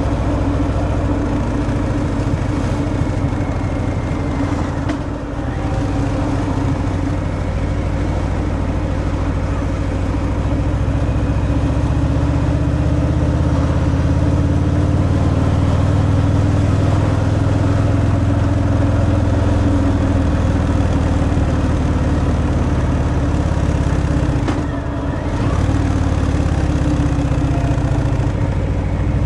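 Harley-Davidson Fat Boy's Milwaukee-Eight 114 V-twin running through its stock exhaust while cruising, heard from the rider's seat. The engine note is steady and gets fuller and louder from about ten seconds in, with two brief dips, about five seconds in and near the end, where the throttle eases off.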